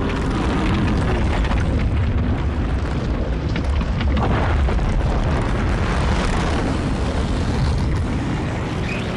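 A steady, loud, deep rumble: a sustained rumbling sound effect, heaviest in the low range.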